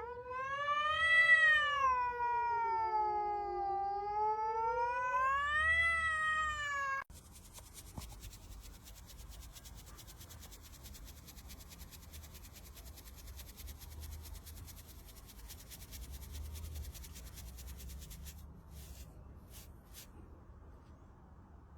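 A house cat's single long, drawn-out yowl, its pitch rising, sagging and rising again before it cuts off about seven seconds in. After that, only faint background noise with a few soft clicks.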